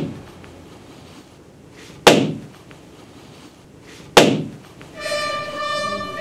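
A party balloon bursting with a sharp bang as a blowgun dart pierces it, heard twice about two seconds apart, each bang with a ringing tail. Orchestral music with strings starts about five seconds in.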